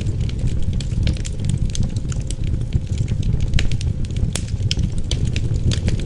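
Wood fire in a fireplace crackling, with many sharp, irregular pops and snaps over a steady low rumble.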